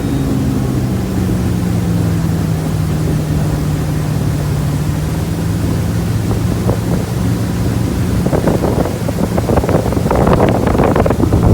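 Motorboat engine running steadily at speed, with wind buffeting the microphone, growing louder from about eight seconds in.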